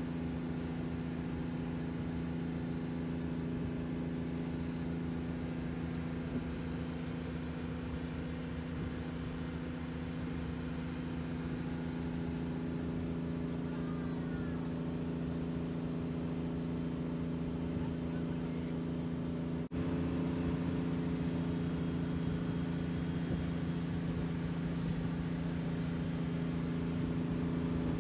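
Tow boat's engine running steadily under way, heard from aboard the boat, a constant low hum. About two-thirds of the way through it breaks off for an instant and resumes slightly louder.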